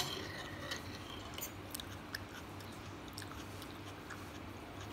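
A sharp clink of a metal fork against a ceramic bowl right at the start, then soft chewing of a mouthful of noodles with a few light clicks of the fork in the bowl.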